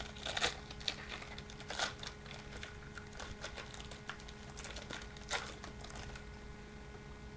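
Plastic foil trading-card pack wrapper crinkling and tearing as it is opened by hand, with cards shuffling. There are sharp crackles about half a second in, near two seconds and a little past five seconds over a steady low hum.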